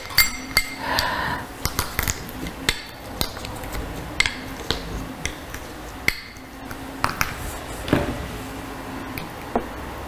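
A metal spoon clinking and scraping against a small glass bowl of rowan berries, in many irregular sharp clinks. A short ringing of the glass comes about a second in.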